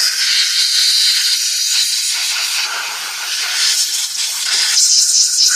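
Dental air-water syringe spraying a steady hiss of air and water over a dog's teeth, rinsing off the polishing paste after the polish.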